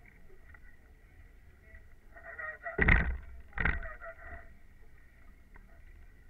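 Two heavy knocks close together about three seconds in, less than a second apart, over faint muffled shouting from the crews on the water.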